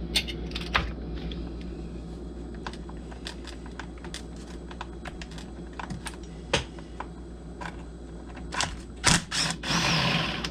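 Scattered light clicks and taps of hand tools and small parts on the bench as the ignition coil of a Stihl MS 250 chainsaw is being unbolted, over a steady low hum, with a short busier rattle near the end.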